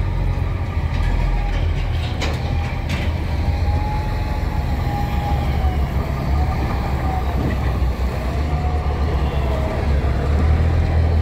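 Heavy truck's diesel engine running as the truck drives slowly, with a deep steady rumble and a whine that rises and falls. Two sharp clunks come about two and three seconds in.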